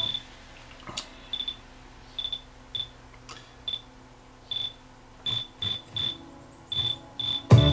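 Short high-pitched chirps, all at one pitch, coming irregularly against a quiet background, with a faint click about a second in. Just before the end, music comes back loud through the speakers.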